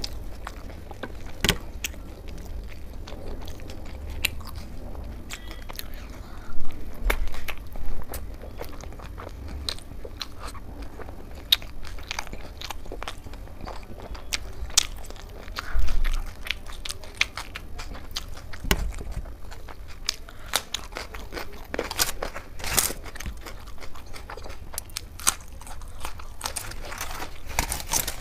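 Close-miked eating sounds: a person chewing and biting food, with crisp crunches and many sharp clicking mouth sounds. There are a few louder bursts, about a quarter of the way in and again just past halfway.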